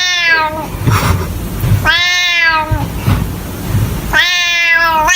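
A cat meowing three times, each a long, drawn-out meow just under a second long, about two seconds apart.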